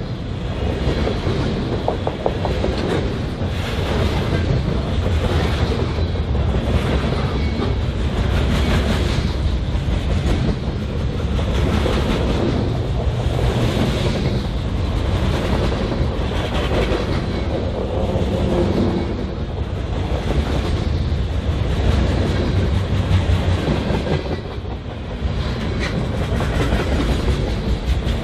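Freight train cars rolling past, a steady rumble with a regular clickety-clack of wheels over rail joints every second and a half or so.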